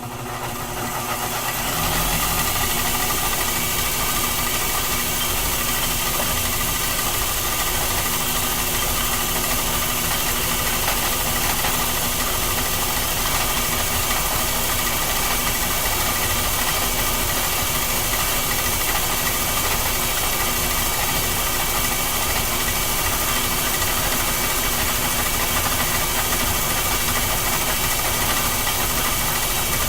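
Old Reed metal lathe driven by a retrofitted treadmill motor, spinning up over the first couple of seconds and then running steadily with a whine of several steady tones over a dense hiss, while it turns a step onto a bearing presser.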